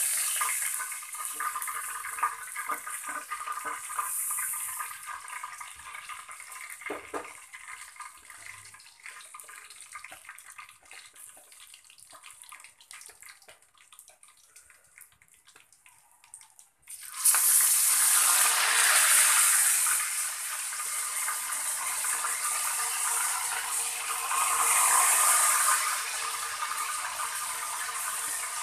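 Pork steak frying in hot oil in a wok: crackling and spattering that dies down as the cooked pieces are lifted out, then a sudden loud sizzle a little past halfway as fresh slices go into the oil, which goes on sizzling steadily.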